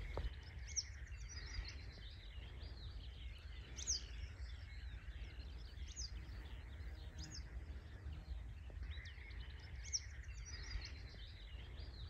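Birds singing: a dense, continuous run of high chirps and trills, with a sharp sweeping whistled note every second or two, over a faint low steady rumble.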